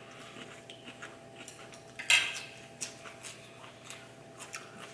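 A fork and chopsticks clicking and scraping on ceramic plates during a meal, in scattered small taps, with one louder clatter about two seconds in.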